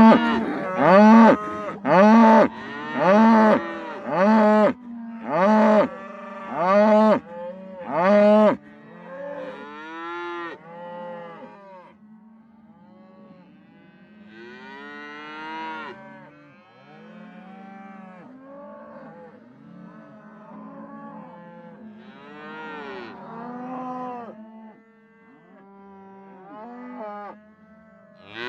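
Cattle mooing: loud, short moos about once a second for the first eight seconds or so, then quieter moos for the rest.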